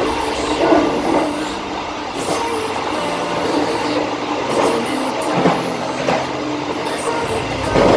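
KA Bengawan passenger train running along the track: a steady rumble of wheels and carriages on the rails, with short clatters now and then.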